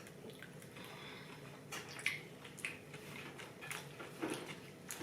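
Quiet chewing and wet mouth sounds of someone eating sushi, with a few soft clicks and smacks spread across the second half.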